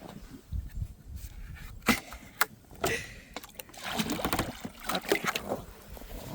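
Scattered knocks and clicks with light splashing as the goats' water container is handled, the sharpest knocks about two to three seconds in.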